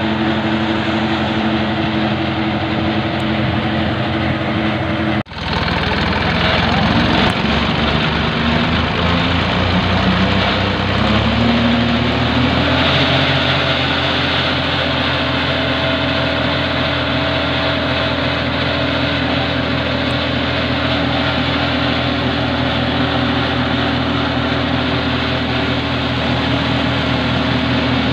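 Massey Ferguson 9500 tractor engine driving a clay-mixing machine. It runs steadily, cuts out for a moment about five seconds in, then revs up over several seconds and holds at a higher, steady speed.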